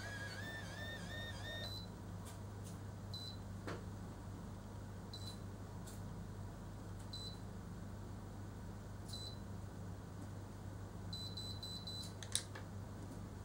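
Automatic hair curler at work on a strand: a short wavering whir at first, then single high beeps about every two seconds as the heat time counts down. A quick run of five beeps near the end signals that the curl is done, followed by a click.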